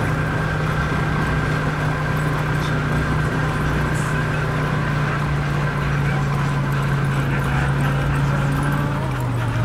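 An engine running steadily, dropping a little in pitch about two-thirds of the way through and again near the end, while a team of Siberian huskies runs in harness pulling a dog sled.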